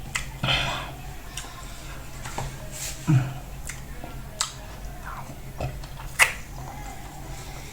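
Close-up eating sounds of fufu and soup: wet mouth clicks and lip smacks, with a short slurp-like burst about half a second in.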